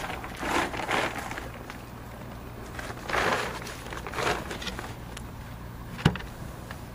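Plastic tarpaulin covers rustling in bursts as they are handled, with footsteps on bark chippings and one sharp knock about six seconds in.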